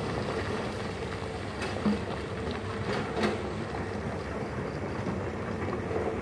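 Diesel engine of a distant hydraulic excavator running steadily with a low hum, and two short knocks about two and three seconds in.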